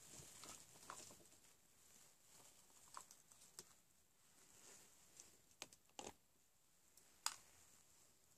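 Near silence with faint scattered rustles and small clicks of hands handling skin and clothing, the sharpest click about seven seconds in.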